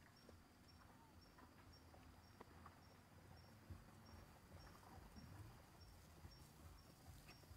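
Near silence with faint forest ambience: an insect chirping in a steady high pulse about twice a second, with a few small ticks and rustles.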